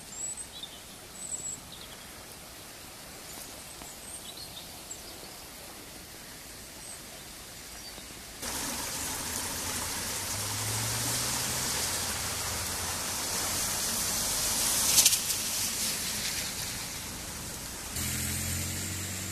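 Quiet outdoor ambience with a few bird chirps. About eight seconds in, the loud, steady rush of a river in flood takes over, with a low hum rising under it twice.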